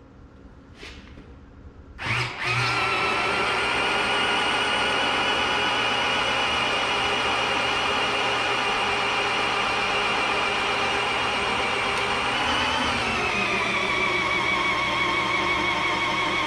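An electric drill starts about two seconds in and spins an Oliver 1855's rebuilt over/under powershift transmission on the bench, driving its pump to build clutch pressure. It is a steady motor whine that dips a little in pitch about thirteen seconds in.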